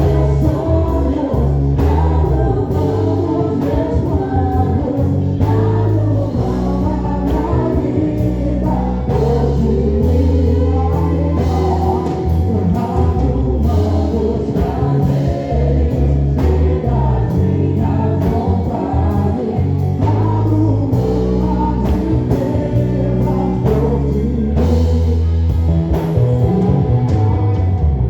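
Gospel praise band playing a worship song with voices singing over a steady drum beat and a strong bass line.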